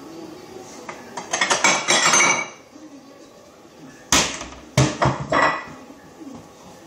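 Clatter of hard objects: a rattling run of clicks, then two sharp knocks followed by a short clatter a little later.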